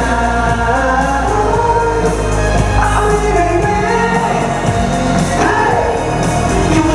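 Live pop song with male singing over a backing track, played loud through an arena's sound system.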